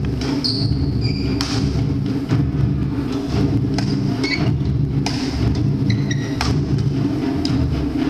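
Badminton rally on a wooden court: about four sharp racket strikes on the shuttlecock, with short high squeaks of shoes on the floor between them, over a steady low hum.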